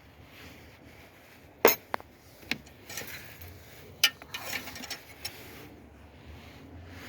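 Scattered metallic clinks and knocks of hand tools and parts being handled. The loudest comes about one and a half seconds in, with a brief run of lighter clinks later.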